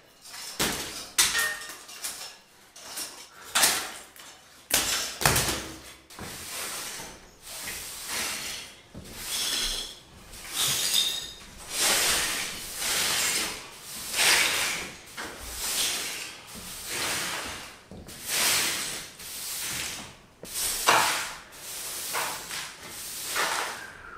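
Loose lime plaster being picked off a ceiling, with pieces dropping and knocking on the floor. Then a straw broom sweeps the plaster rubble across the floor in scratchy strokes, about one a second.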